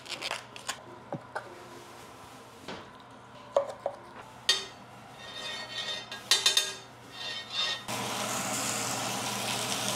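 Knife slicing raw chuck roast on a wooden cutting board, with scattered knocks, scrapes and handling of the meat. About eight seconds in, a steady hiss sets in.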